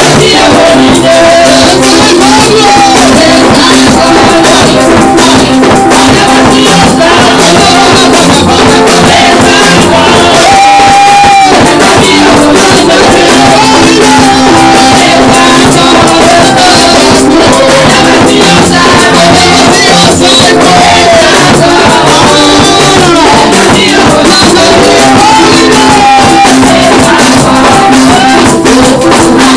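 Loud gospel praise-and-worship music: singing over a steady beat of drums and percussion, with hands clapping along.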